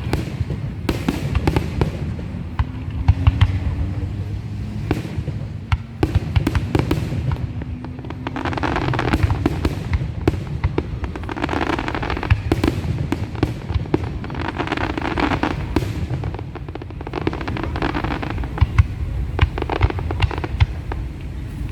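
Fireworks going off continuously: many sharp bangs, with swells of crackling every few seconds.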